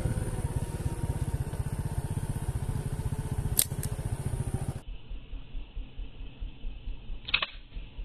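An engine running steadily with a fast, even low putter, which stops abruptly a little past halfway. After that it is quieter, with a couple of sharp clicks near the end.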